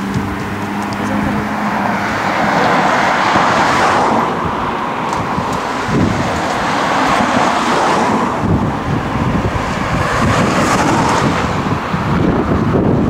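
Road traffic: car engine hum and tyre noise. A steady low engine hum fades in the first couple of seconds into a continuous rumble of traffic.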